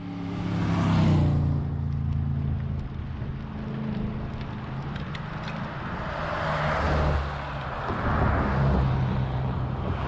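A motorcycle passes in the oncoming lane, its engine loudest about a second in. A steady engine hum from passing traffic continues, with a second swell of tyre and wind noise from about six to eight seconds.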